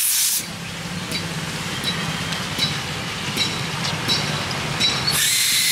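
Pressure-washer foam sprayer hissing in two bursts, a short one at the start and a longer one from about five seconds in. Between the bursts a steady low hum runs, with light regular ticks.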